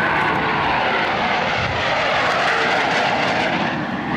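Four US Navy F/A-18 Hornet jets in diamond formation passing low overhead: a loud, steady jet roar whose whine falls in pitch over the first second as they go by.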